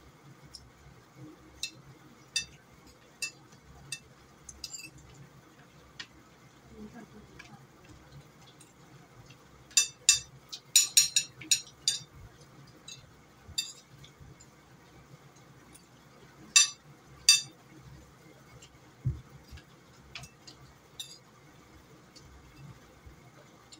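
Spoons clinking and scraping against plates during a meal: scattered light clinks, a quick run of loud ones about ten seconds in, and two sharp ones a few seconds later.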